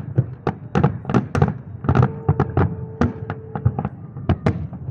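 Fireworks display going off: a rapid, irregular string of sharp bangs, several a second.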